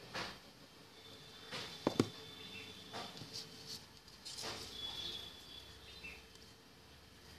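Hands handling and pressing small cut pieces of art paper onto a paper stem, making scattered paper rustles and light scrapes, with a sharp tap about two seconds in.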